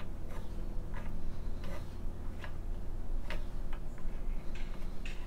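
Irregular light clicks and taps of a wooden throat insert being pressed and worked into the mouth of a wooden smoothing plane, wood knocking on wood as it is test-fitted.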